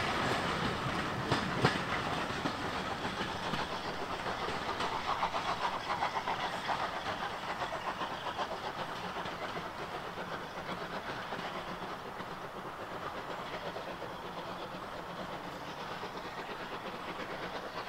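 Steam-hauled passenger train running away along the track: the coach wheels click over the rail joints in a steady clickety-clack with some hiss, growing fainter as the train draws away.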